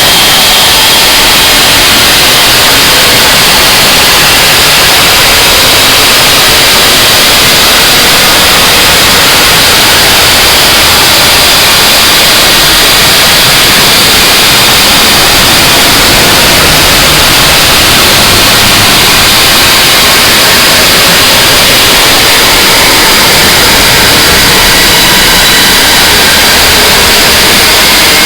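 Harsh noise wall music: a dense, unchanging wall of distorted static, very loud and pushed close to full scale throughout.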